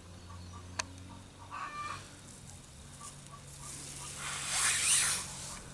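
A hen clucking briefly, a short call about a second and a half in. A sharp click comes just before it, and a louder burst of hissing noise swells and fades near the end.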